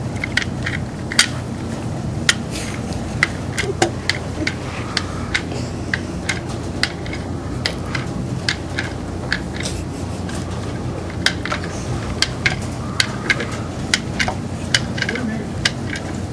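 Irregular light metallic clicks, about one or two a second, as an Allen wrench is turned and reseated in a screw head, driving a screw into a nylon-insert lock nut on a CIMple Box gearbox. A steady low hum runs underneath.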